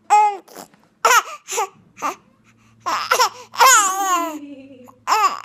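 Baby laughing and babbling in a string of short, high-pitched vocal bursts. The longest comes a little past the middle and slides down in pitch.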